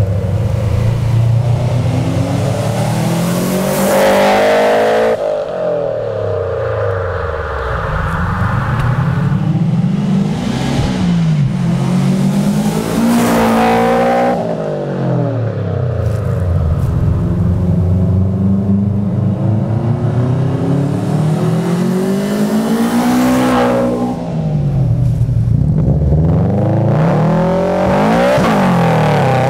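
Subaru Impreza WRX STi (GC8) turbocharged boxer-four with its exhaust silenced, accelerating past and pulling away. The engine note climbs and falls about four times.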